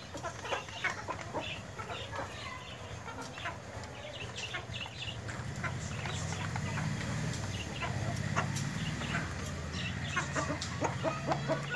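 A flock of desi chickens and roosters clucking with many short calls while they feed. A low, steady hum underneath grows stronger from about halfway in.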